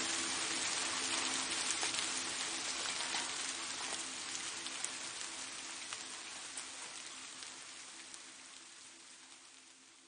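Rain falling steadily, with single drops ticking sharply through the hiss, fading out gradually toward the end. A faint steady low hum sits underneath.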